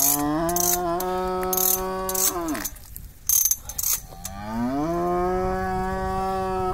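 A cow in labour mooing twice in long calls, each rising in pitch, held, then falling off at the end. Between the calls come short bursts of clicking from the ratchet of a Vink calving jack as the calf is pulled out, the loudest burst a little after the middle.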